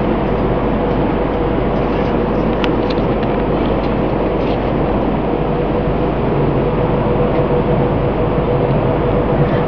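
Airplane engine noise: a loud, steady rushing sound with a constant hum that holds the same pitch throughout.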